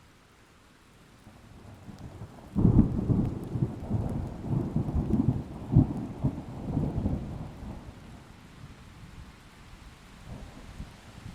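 Thunder over rain: a low rumble builds, then breaks into a sudden loud clap about two and a half seconds in and rolls on in uneven peaks for several seconds before fading away.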